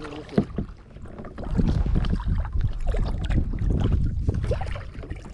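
Water sloshing and knocking around a kayak, with a low uneven rumble on the microphone, while a hooked bass is fought beside the boat. The rumble swells about a second and a half in and eases off near the end.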